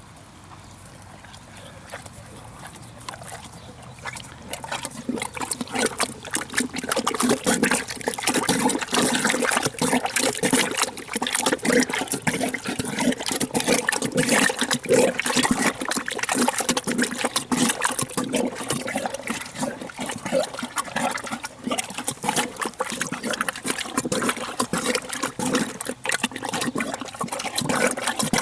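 Horse eating a wet stew of soaked hay: rapid, continuous wet slurping and chewing that starts about five seconds in.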